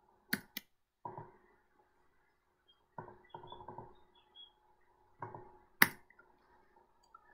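Computer keyboard keystrokes in a few short runs of typing, and sharp mouse clicks: two just after the start and a loud one near the end, over a faint steady hum.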